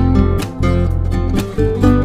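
Background music led by acoustic guitar, with a steady rhythm of plucked notes over a sustained bass.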